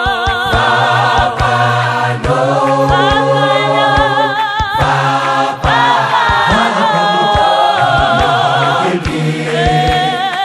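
Vocal group singing a cappella in several parts: held chords with vibrato in the upper voices over a low bass line, with a steady beat of short, sharp knocks.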